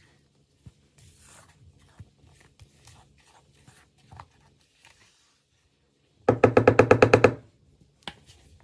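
Silicone spatula scraping chocolate cake batter from a plastic bowl into a metal cake pan, faint and intermittent. About six seconds in comes a loud, rapid stuttering buzz of about a dozen pulses, lasting about a second.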